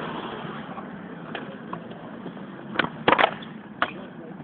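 Kick scooter rolling on concrete: a steady wheel noise, with a few sharp knocks about three seconds in.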